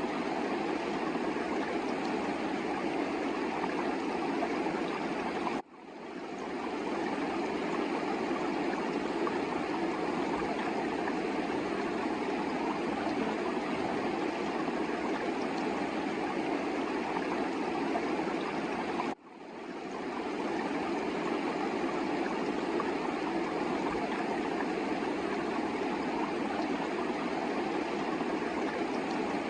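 A fast mountain river rushing over rocks in a steady, even wash of water noise. Twice the sound cuts out for a moment and fades back in.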